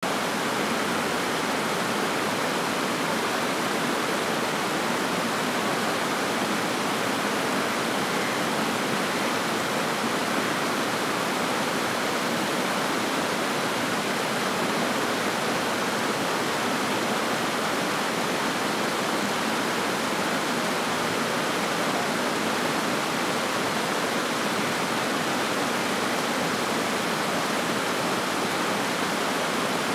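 Water pouring over a low cascade of rocks: a steady, even rush that does not change.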